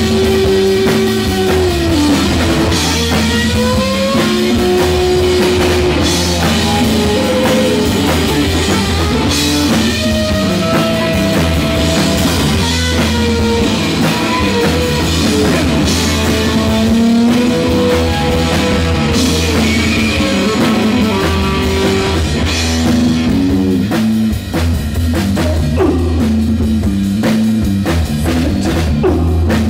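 Live rock band playing loud: an electric guitar lead of held, bending notes over a driving drum kit, with a brief drop about 24 seconds in.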